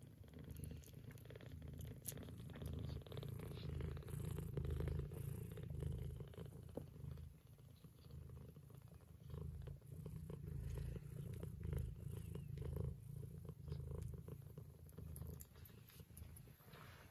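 Mother cat purring steadily while nursing, a low rumble that rises and falls in waves. Mixed in are many small wet clicks of the kittens suckling and smacking their lips.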